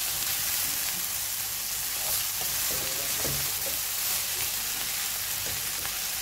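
Shredded potato and carrot steadily sizzling as they fry in a wok, stirred and turned with a spatula that lightly scrapes and taps against the pan now and then.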